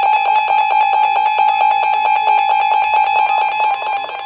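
NOAA weather radios sounding their alert alarms for a tornado warning: a loud steady tone with higher tones over it, pulsing fast and evenly.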